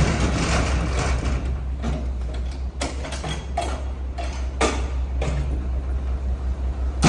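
Mack MR rear-loader garbage truck's diesel engine idling steadily, with a couple of sharp metal clanks and rattles as an emptied steel dumpster is lowered and wheeled away from the hopper.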